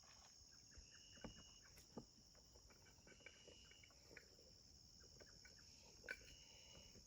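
Faint, steady high-pitched chirring of crickets, with scattered small clicks.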